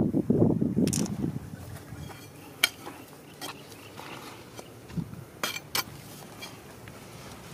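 Low rumbling noise for about the first second, then several sharp, scattered clicks of hard stone knocking on stone, with one duller thump about five seconds in.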